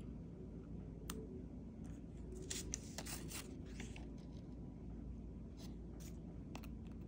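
Light handling noises: a short stretch of paper rustling and scraping about halfway through as a printed paper strip is handled, with a few soft ticks before and after, over a low steady hum.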